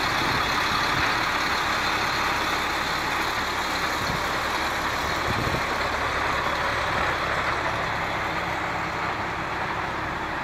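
Heavy diesel truck engine idling, a steady unbroken running sound.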